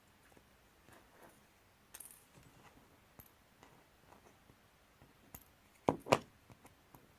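Scattered small clicks and taps of hand work on small parts, with two sharp knocks in quick succession about six seconds in.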